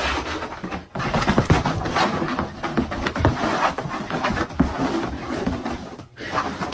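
A dog panting heavily, in short irregular breaths.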